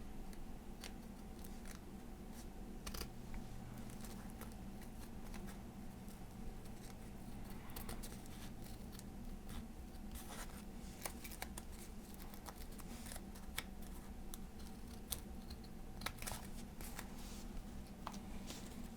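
Titanium-coated craft scissors snipping through several layers of folded copier paper, a run of short, irregular cuts.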